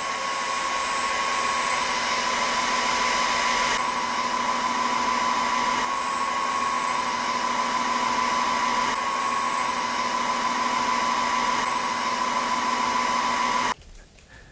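Redroad W13 cordless wet-dry vacuum mop running steadily with a constant high whine while picking up a wet coffee spill. It shuts off suddenly near the end.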